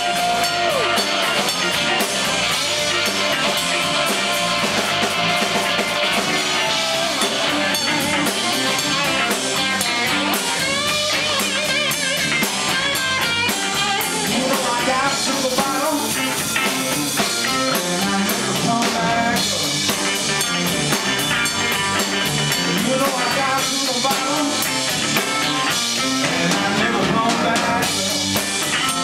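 Live rock band playing: an electric guitar lead with bent notes over drums, bass and rhythm guitar.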